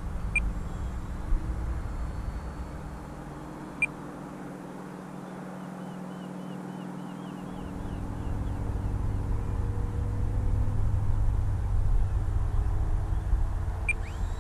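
A faint drone from the model plane's electric motor, slowly shifting in pitch, over a low rumble on the microphone that grows louder about halfway through. Three short high beeps cut in: two about three seconds apart near the start and one near the end.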